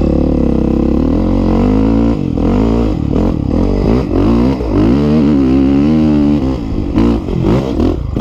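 Honda CRF450 dirt bike's single-cylinder four-stroke engine revving hard under load on a steep hill climb. Its pitch rises and falls repeatedly as the throttle is worked, with brief lifts off the throttle near the end.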